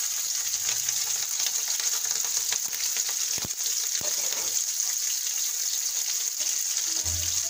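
Chopped green chillies frying in hot oil in a karahi: a steady, loud sizzle, with two sharp pops about three and a half and four seconds in.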